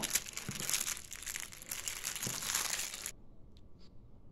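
Clear plastic packaging crinkling as it is handled and opened by hand, stopping abruptly about three seconds in, followed by a few faint clicks.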